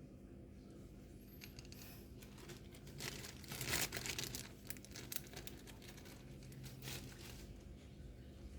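Crinkling and rustling of light material being handled by hand, loudest a little before the middle, with a few light clicks.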